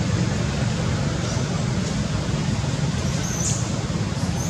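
Steady low background rumble, with two short high chirps, one about three seconds in and another near the end.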